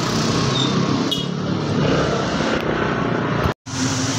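Motor vehicle engine running steadily with road noise on a narrow street. The sound drops out for a split second near the end.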